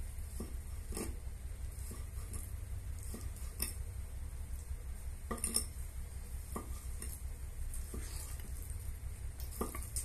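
A knife cutting raw meat into pieces on a wooden chopping board: irregular knocks as the blade strikes the board, over a steady low hum.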